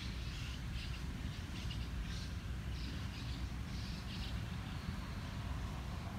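Small birds chirping in short repeated calls over a steady low rumble; the chirps die away a little past the middle.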